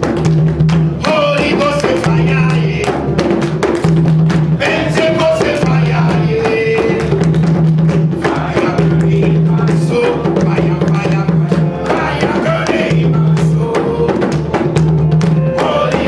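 Live church praise-band music: a drum kit playing a steady beat over a repeating bass line, with some singing.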